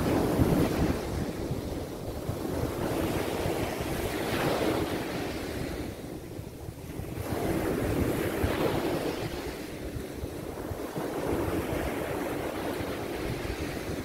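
Mediterranean surf breaking and washing up a sandy beach, each wave's rush swelling and fading about every four seconds.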